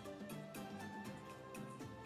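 Background music with a steady beat under held notes.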